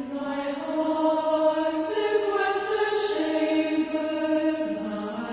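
A choir singing plainchant, the voices moving together from one held note to the next, with the hiss of sung consonants.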